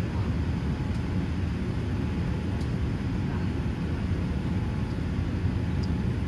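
Steady low rumble of engine and airflow noise inside the cabin of a Boeing 787-8 airliner on approach to landing.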